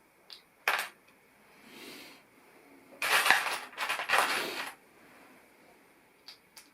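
Plastic LEGO pieces handled during a build: a few sharp clicks, then a louder stretch of rattling and clinking about three seconds in, and two more small clicks near the end.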